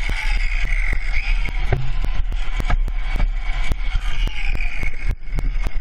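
Motorcycle on the move: steady wind rush buffeting the rider's microphone over engine and road noise.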